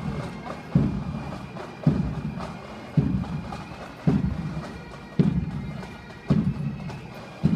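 Pipe band of bagpipes playing a march, with a bass drum beating a steady thud about once a second.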